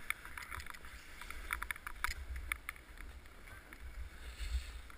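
Snowboard sliding over snow with a steady hiss, broken by several short sharp edge scrapes, over a low rumble of wind on the microphone.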